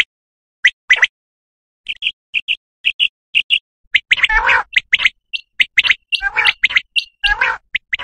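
Common quail calls used as a hunting lure. Near the start comes one three-note 'wet-my-lips' phrase, then a quick run of short, high, evenly spaced notes. From about four seconds a denser, rougher run of overlapping calls takes over.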